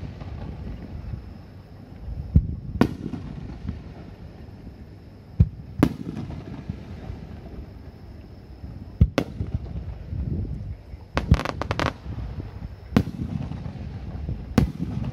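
Aerial firework shells bursting one after another: sharp bangs every one to three seconds, with a low rolling echo between them and a quick run of crackling reports about two-thirds of the way through.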